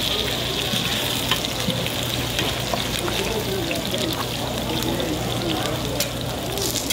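Bindaetteok (Korean mung bean and pork pancakes) sizzling steadily in shallow oil on a flat griddle pan. Metal spatulas click and scrape against the pan now and then.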